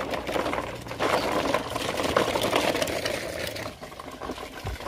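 Plastic toy truck and trailer rolling over gritty dirt: the wheels crunch and the plastic body rattles with many fine clicks, easing off near the end.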